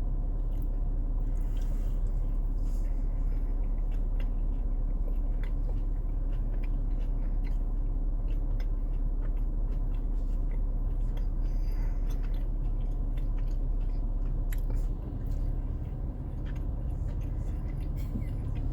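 A person chewing a piece of bourbon chicken, with small wet clicks of the mouth, over a steady low rumble.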